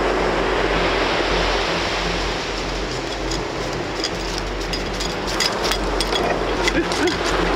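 Ocean surf breaking and washing up a sandy beach, a steady rush. From about halfway through, light clicks and clinks sound over it.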